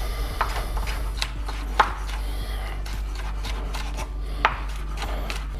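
Chef's knife chopping a red chili pepper on a bamboo cutting board: irregular knocks of the blade on the wood, with the sharpest knock about four and a half seconds in.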